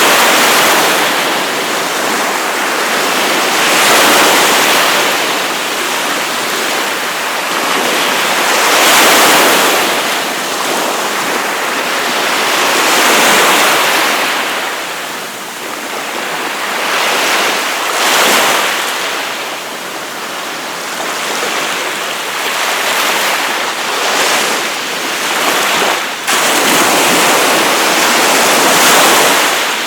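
Sea waves breaking and washing up the beach, a continuous surf hiss that swells with each wave about every four to five seconds.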